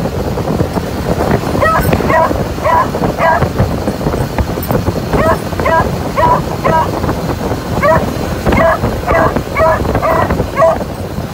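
Beagles barking excitedly in three runs of quick, short barks, starting about a second and a half in, over the steady noise of the moving motorcycle and the wind.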